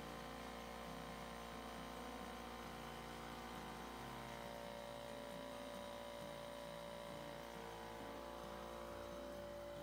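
Faint, steady hum of a repaired Husky air compressor's electric motor and pump running after starting, with no change in level.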